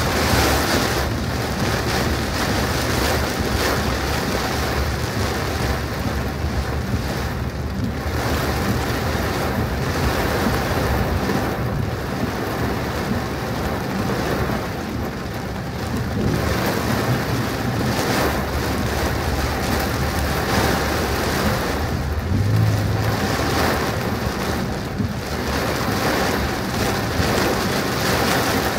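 Heavy rain falling steadily on a car, with a low steady hum underneath.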